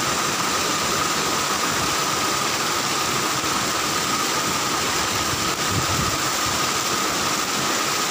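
Steady rush of water cascading down rocks into a shallow stream, with a thin steady tone running through it.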